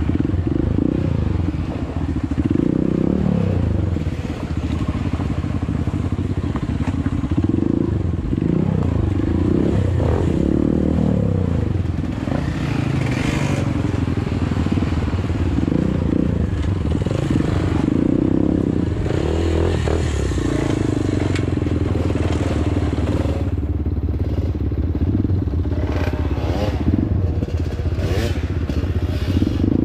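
Honda CRF150L dirt bike's single-cylinder four-stroke engine running at low speed over a rough trail, its revs rising and falling again and again as the throttle is worked.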